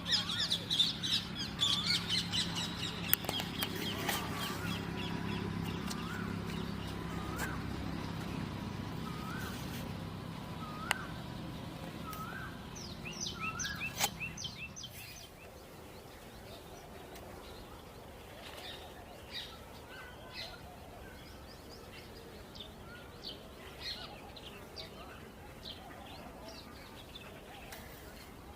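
Birds calling and chirping: a fast falling series of notes at the start, then a short upswept call repeated about once a second for several seconds, and scattered quieter chirps after that. A low steady hum runs underneath and stops about halfway through.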